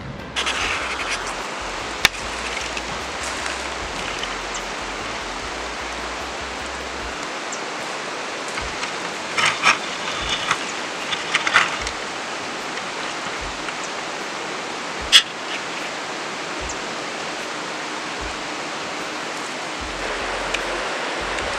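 Steady rushing of river water, with a few short clicks and knocks over it around the middle.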